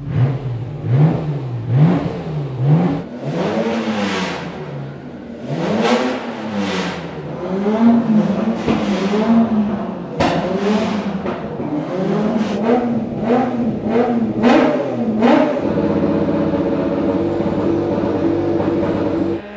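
A Nissan Skyline race car's engine being blipped in quick repeated revs, its pitch rising and falling about once a second. It then settles into a steady idle for the last few seconds.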